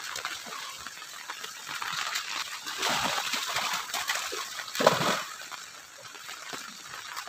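Splashing in shallow floodwater as children run, dive and slide on their bellies through it, with two louder splashes about three and five seconds in.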